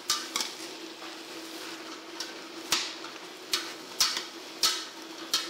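Metal spoon stirring boiled corn kernels as they fry in a stainless-steel pot, clinking and scraping against the pot about eight times, over a steady hum.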